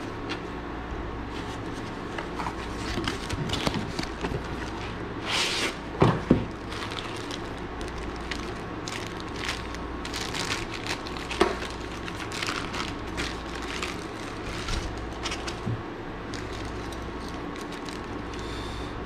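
Unboxing handling noise: plastic bags crinkling and rustling, with cardboard and foam packaging scraping, over a steady low hum. A couple of sharper knocks come about six seconds in.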